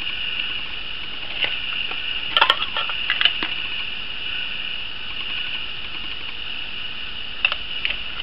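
Light clicks and taps of small metal mint tins being handled and knocked against each other in the hands, a cluster of them about two to three seconds in and a couple more near the end, over a steady high hiss.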